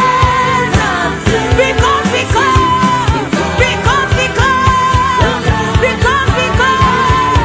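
Worship music: a voice singing long held notes that slide between pitches, over a steady drum beat and sustained bass.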